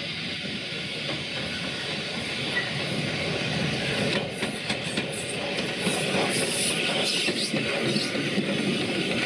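WD Austerity 2-10-0 steam locomotive running tender-first past with its train of coaches. Its wheels clatter over the rails from about four seconds in, growing louder as it comes close.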